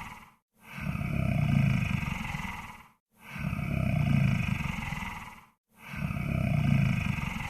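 Monster snore sound effect: deep, rough, growling snore breaths, each swelling and fading over about two and a half seconds, with a brief silence between them. Three full breaths sound after the tail of the previous one.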